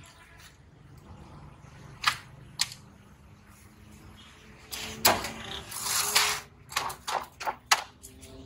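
Handling noise: a string of sharp knocks and taps as plastic bottles and containers are moved and set down, with a crinkly rustling stretch, like a plastic bag being handled, about five to six seconds in.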